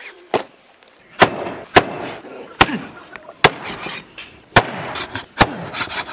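Meat cleaver chopping bone-in mutton on a wooden chopping board: about seven sharp strikes, roughly one a second.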